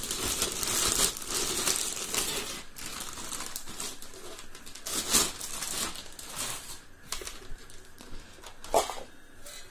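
Thin plastic bag crinkling and rustling as a mixer grinder's motor unit is pulled out of it and handled, in irregular bursts with a few sharper crackles.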